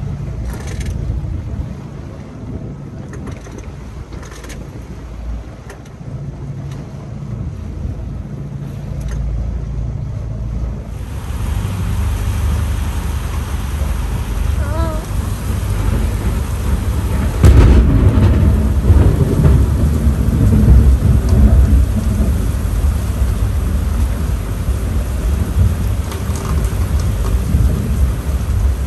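Thunderstorm: steady noise of rain and wind, then a sudden loud thunderclap a little past halfway that rumbles on for several seconds.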